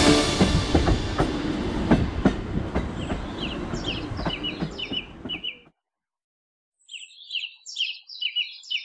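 Metre-gauge diesel railcar running, a rumble with irregular wheel knocks that fades out over about five seconds. A small bird chirps in quick repeated notes, first under the train and then alone after a brief silence.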